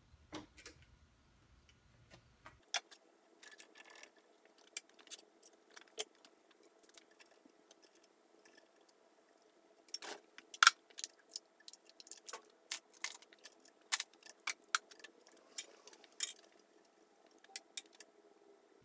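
Metal clicks and clinks of hand tools and small steel parts as the spindle feed handle assembly of an Atlas 73 drill press is partly taken apart, with a sharp knock about ten and a half seconds in.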